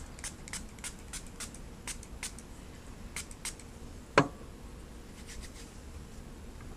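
A run of faint light clicks, about three a second, then one sharp, much louder click about four seconds in.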